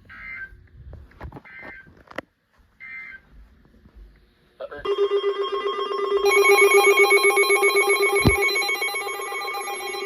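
Emergency Alert System broadcast: three short screeching bursts of digital data code, then, about five seconds in, a loud, harsh, steady two-tone attention signal that starts the next alert.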